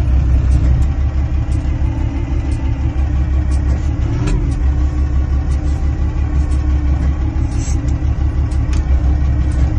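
Diesel engine of a Kalmar DCE 120-6 heavy forklift running steadily, with scattered light clicks and a brief squeak about four seconds in.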